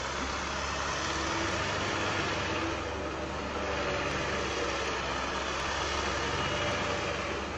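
Tractor engine running steadily, with a low hum under a broad, even rushing noise.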